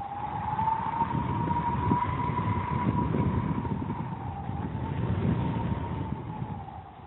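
Trailer soundtrack drone: one wavering high tone that slowly rises and falls over a low rumble, swelling in the first second and fading near the end.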